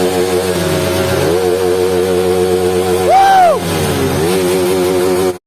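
Motorcycle engine running steadily, its pitch dropping and recovering briefly twice, with a short, loud rising-and-falling tone about three seconds in.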